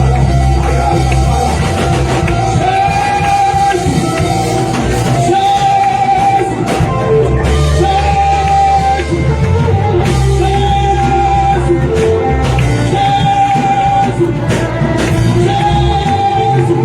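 Loud live worship music: singing in repeated long-held phrases over a band with heavy bass and drums.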